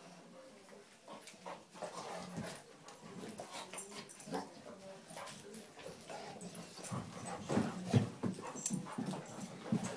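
Two dogs scuffling in a fight, with short dog vocalizations; it grows louder over the last few seconds.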